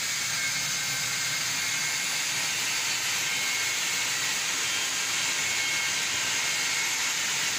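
Oxy-LPG cutting torch hissing steadily as it cuts through steel plate.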